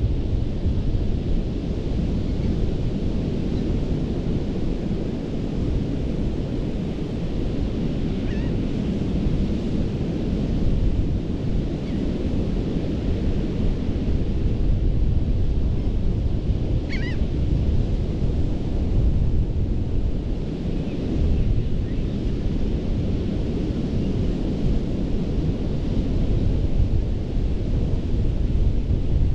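Gulf of Mexico surf washing steadily onto a sandy beach, a continuous low rumble of breaking waves with wind buffeting the microphone. Two faint, brief high chirps come through, one about a third of the way in and another a little past the middle.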